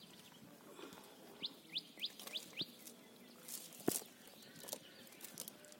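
A bird calling a quick run of five short rising chirps, about three a second, starting about a second and a half in. Scattered clicks and handling knocks sound around it, the loudest a sharp knock about four seconds in.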